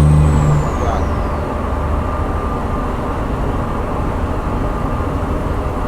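Inside a moving truck's cab: a steady engine hum that drops away about half a second in, and a high whine that glides down and fades, leaving an even rumble of road and engine noise.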